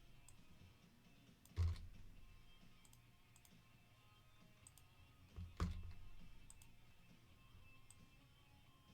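Clicks of a computer keyboard or mouse: two sharp clicks about four seconds apart, with faint lighter ticks between them. Faint background music runs underneath.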